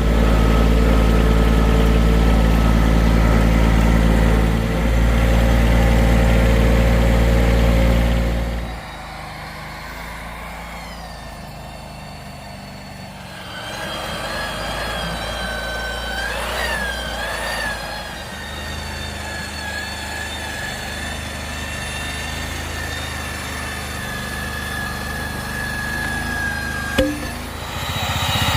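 A vehicle engine running steadily close by, which drops away sharply about nine seconds in. A quieter engine sound carries on with a steady high whine over it, and there is a single sharp click near the end.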